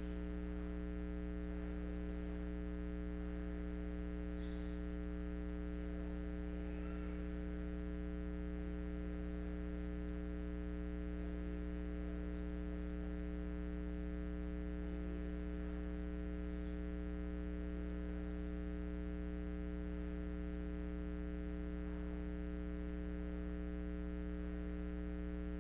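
Steady electrical mains hum, a low buzz with many overtones, holding unchanged and covering everything else in the recording.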